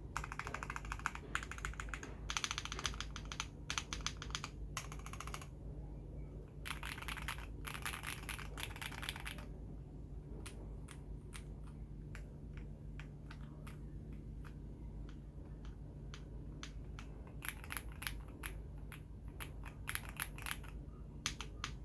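Akko ACR Pro 75 mechanical keyboard with lubed JWK Black linear switches, polycarbonate plate, tape mod and polyfil mod, being typed on: fast runs of keystrokes, then a stretch of slower, spaced single key presses from about ten seconds in, then fast typing again near the end.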